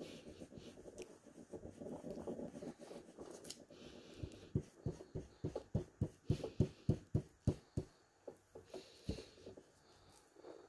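Ink blending tool scrubbing Distress Oxide ink through a plastic stencil onto paper: a soft rubbing at first, then a run of short even strokes about three a second that stops about eight seconds in.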